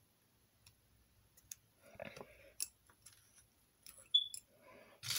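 Small plastic building-toy parts clicking and rattling as they are handled, with a faint rustle about two seconds in and a sharper click with a short high squeak about four seconds in.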